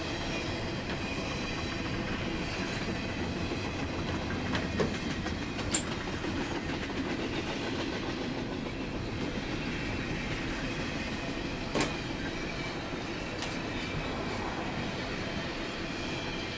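Steady rumble of a railway carriage in motion, heard from inside the compartment, with a few sharp clicks about five, six and twelve seconds in.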